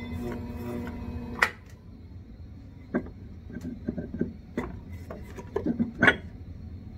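Skutt Prodigy pottery wheel's motor humming, cutting off with a knock about a second and a half in. Then a run of knocks and clunks as the metal wheelhead is worked loose and lifted off its shaft, the loudest about six seconds in.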